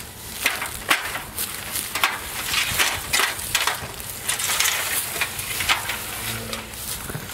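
Irregular rustling and crackling from handling gear: a protective suit's fabric, a cloth bag and an aluminium ladder being moved about, with a dozen or so sharp crackles.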